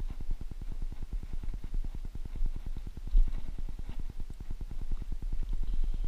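Low, muffled rumble with a rapid flutter, typical of wind buffeting a body-worn action camera's microphone, with a single low thump about three seconds in.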